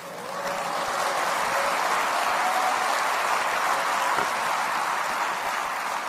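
Large seated audience applauding: the clapping builds quickly at the start, holds steady for several seconds, then eases off near the end.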